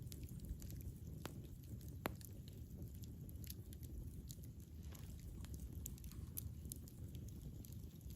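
Campfire burning: a low, steady rumble of flame with sparse, sharp crackles and pops, the loudest about two seconds in.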